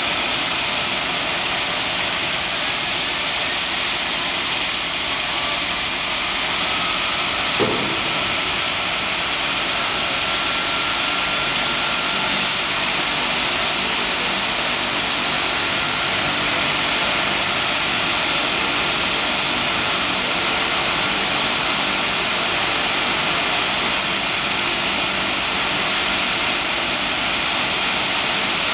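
DHC-6 Twin Otter's Pratt & Whitney Canada PT6A turboprop engine running during start-up: a steady high whine over loud rushing noise, with a fainter tone rising slowly between about six and fourteen seconds in. There is one short low knock about eight seconds in.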